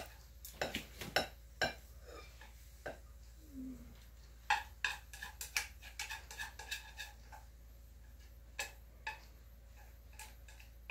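Dishes and kitchen utensils being handled, a scatter of light clinks and knocks with brief ringing. They come in a busy run about four to seven seconds in, then a few single clinks near the end.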